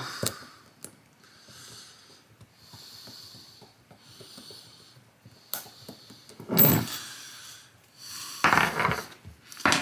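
A man breathing heavily through his nose while straining to twist apart a rifle bolt by hand, with two louder, forceful breaths in the second half. A few small sharp clicks come from the bolt, one just before the end.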